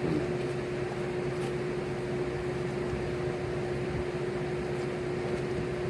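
Electric fans running: a steady rushing noise with a constant motor hum.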